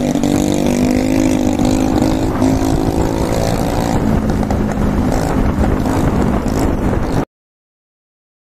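A motorbike's engine running at a steady cruising pitch under wind and road noise while riding; the sound cuts off abruptly to dead silence about seven seconds in.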